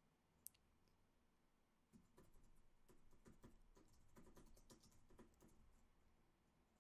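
Faint computer keyboard typing: a quick run of soft key clicks starting about two seconds in, over near silence.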